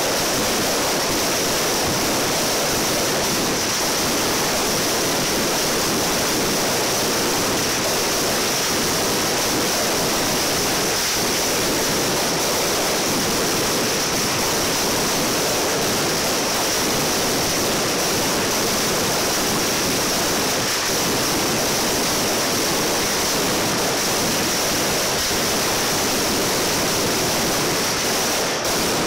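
Firecrackers of a manual mascletà, strings of small bangers going off so fast that they merge into one steady, unbroken rush of crackling noise.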